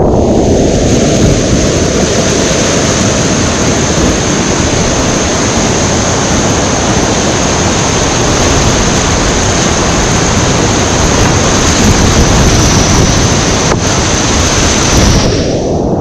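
Loud, steady rush of whitewater rapids heard close up from a kayak running through them. The sound turns muffled for a moment near the end.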